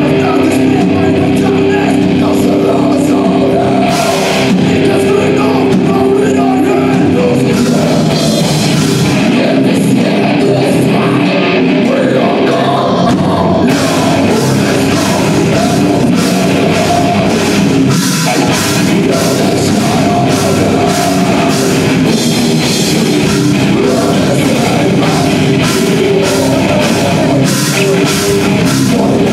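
Death grindcore band playing live: distorted electric guitars and a drum kit, loud and dense, with harsh vocals into the microphone. About halfway through, the drumming turns to fast, even hits.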